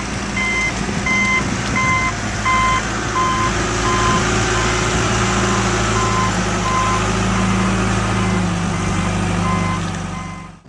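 A large truck's engine running loudly while its reversing alarm beeps about twice a second. The beeps fade somewhat in the middle as the engine grows louder.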